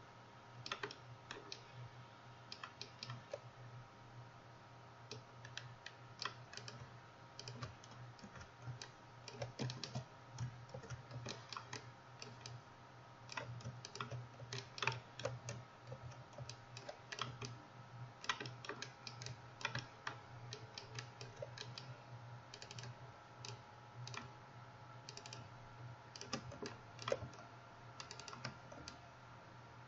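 Computer keyboard keys and mouse buttons clicking in irregular clusters over a steady low hum.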